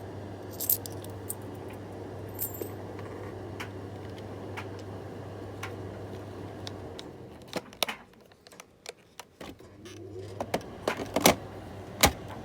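Light plastic clicks and rattles of a vacuum cleaner's dust compartment being handled while its tissue liner is changed, with a few sharper clicks near the end. Under them runs a steady low hum that stops for about two seconds past the middle.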